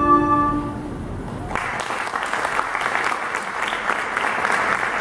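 A recorder ensemble's final held chord stops about a second in, and half a second later the audience breaks into steady applause.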